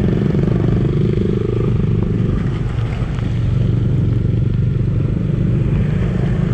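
Bajaj Dominar 400's single-cylinder engine running steadily under way as the motorcycle is ridden, easing off slightly about halfway through.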